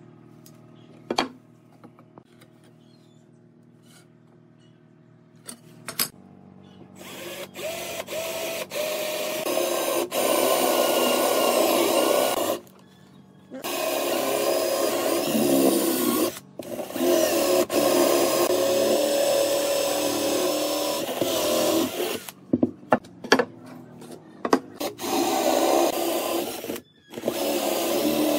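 A cordless drill boring holes into a softwood beam. The motor runs under load in several long runs separated by brief stops. It starts about a quarter of the way in, after a few light taps.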